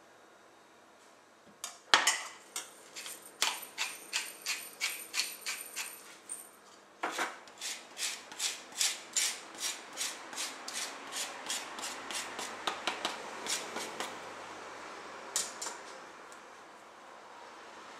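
A lime rubbed against a fine metal rasp grater, zesting: repeated scraping strokes, about two a second, stopping near the end.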